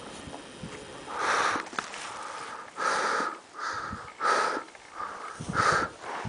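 A person breathing hard close to the microphone: about five short, irregular rushing breaths.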